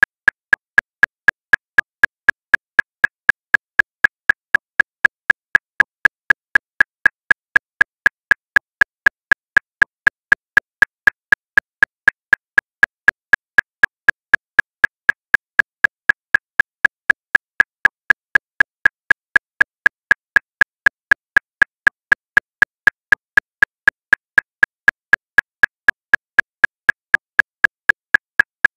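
Metronome clicking at 239 beats per minute, about four short, high clicks a second, every beat equally loud with no accented downbeat.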